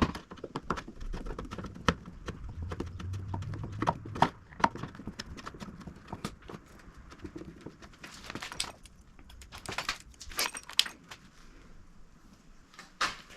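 Irregular clicks, taps and light metallic clatter of hands working on a motorcycle with tools and small parts, with short scraping rustles about eight to eleven seconds in.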